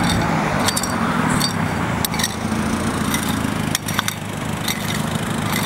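An engine runs steadily throughout, with several sharp strikes of a garden hoe chopping into dry soil.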